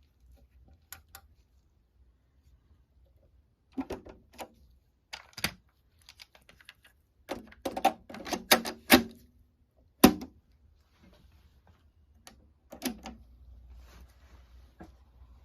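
Clicks and clunks from a Technics 610 cassette deck's controls and cassette door being worked, in several clusters, the loudest about ten seconds in. A faint steady hiss follows near the end.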